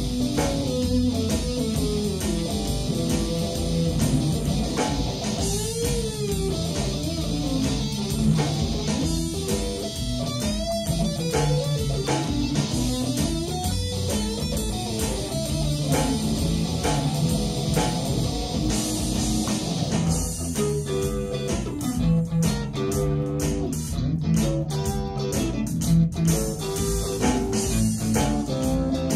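A band playing an instrumental blues: electric guitar lead lines with bent notes over bass guitar and drums.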